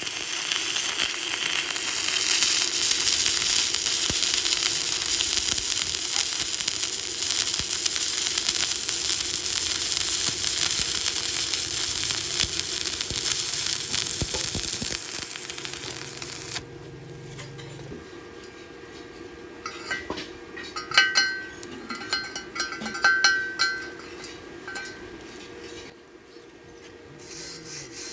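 Stick welding arc crackling and sizzling steadily as a bead is laid, cutting off abruptly about two-thirds of the way in. After it, a handful of sharp, ringing taps.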